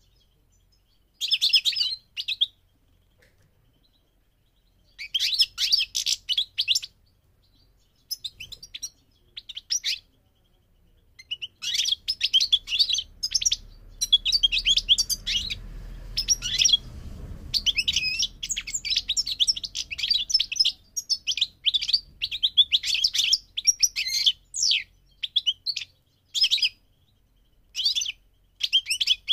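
European goldfinch singing: fast, twittering, tinkling song phrases, in short bursts with pauses at first, then running on almost without a break from about a third of the way in.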